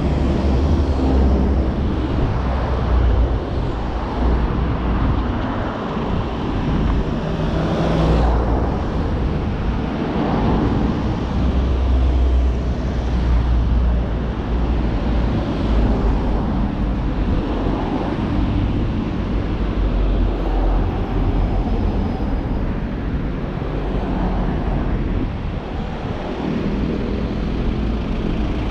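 City street traffic: cars and other vehicles running past, with a steady deep rumble of engines underneath.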